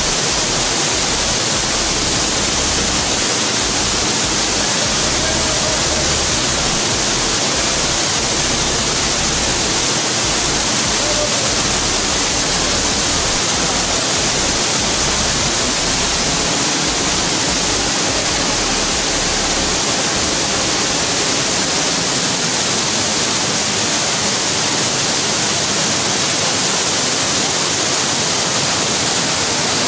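Steady rush of a nearby waterfall, an even wash of falling water. Low buffeting on the microphone comes and goes and stops about two-thirds of the way through.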